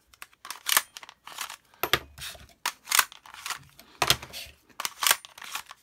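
Plastic magazines of a spring-air BB pistol clicking and scraping as they are handled and slid in and out of the pistol's grip: a string of sharp, irregular plastic clicks, about one or two a second.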